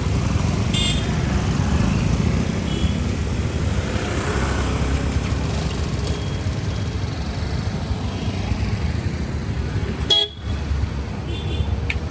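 Steady rumble of motor vehicles on the road, broken by short horn toots about a second in, near three seconds and again near the end.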